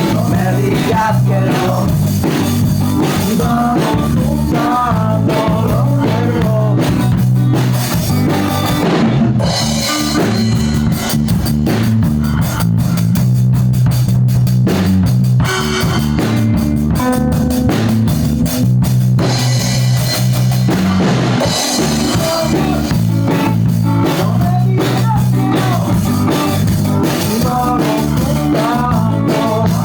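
Rock music with a drum kit and guitar playing over a steady bass line.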